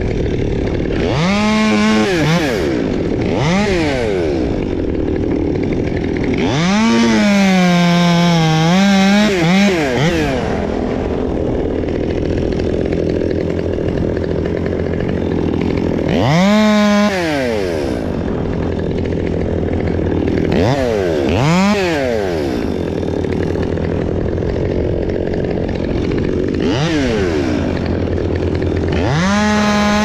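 Small top-handle chainsaw idling in the tree, revved up about seven times into short cuts through silver birch branches. The longest cut is about three seconds, near the start, and the pitch rises and falls with each cut.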